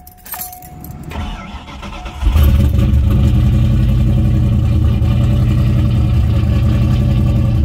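Turbocharged 1986 Ford Mustang 5.0 (302) V8 being started: the starter cranks for about a second, the engine catches a little over two seconds in, and it settles into a loud, steady fast idle. It is running with no exhaust fitted.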